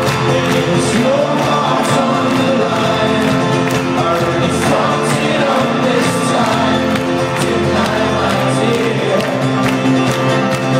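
Live folk-rock band playing loudly in an arena, heard from among the audience: strummed acoustic guitar and banjo over a steady beat, with singing.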